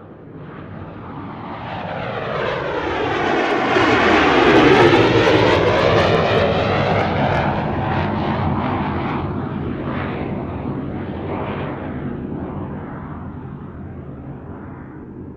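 Airliner passing overhead: its engine noise swells to a peak about five seconds in, with a sweeping, phasing whoosh, then slowly fades away.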